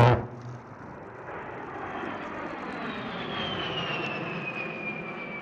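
A short, sharp burst of cannon fire or impacts right at the start. Then the A-10 Thunderbolt II's twin TF34 turbofan engines pass overhead: jet noise building up, with a thin whine that falls steadily in pitch as the aircraft goes by.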